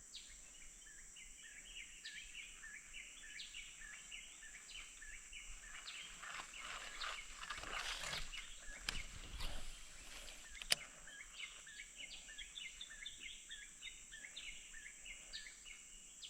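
Faint swamp ambience: a steady high-pitched drone under rapid, repeated short chirping calls. Partway through, a rush of rustling noise swells for a few seconds, and a single sharp click sounds about eleven seconds in.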